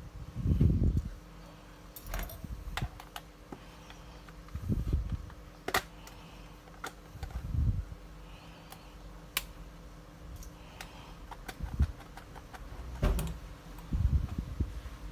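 Scattered sharp clicks and small taps with several dull low thumps, from small tools and parts being handled while a camera body is taken apart.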